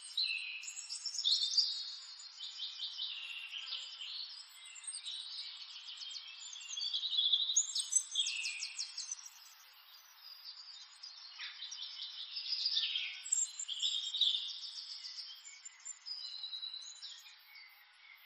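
Birdsong: several birds chirping and trilling, with quick runs of repeated notes coming and going throughout.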